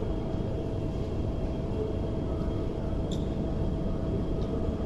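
Steady low rumble of an underground metro platform, with a constant electrical hum running through it and a few faint clicks.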